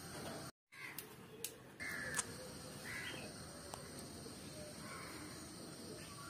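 Crows cawing several times over a steady background hiss, with a few sharp clicks about one to two seconds in. All sound drops out for an instant about half a second in.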